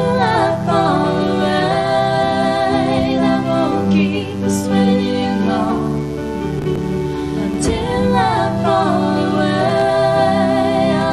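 Female vocals sung over electric keyboard accompaniment, one keyboard a Yamaha synthesizer, in a pop song performed on stage.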